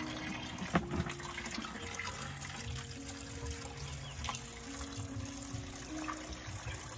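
Water running steadily from a garden hose into a plastic washing-machine tub, filling it.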